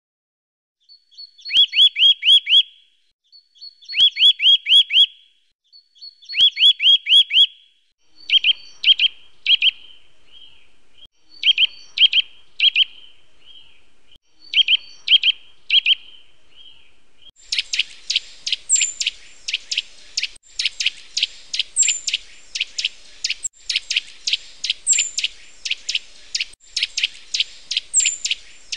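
Eurasian nuthatch singing. It starts with three short, fast runs of high whistled notes, then gives spaced pairs and small groups of whistles. From about two-thirds of the way through it sings a long series of rapid repeated whistles, broken by short pauses about every three seconds.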